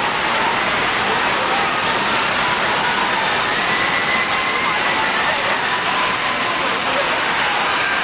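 Steady rush of a monsoon waterfall and its rocky stream, with a crowd's voices faintly mixed in.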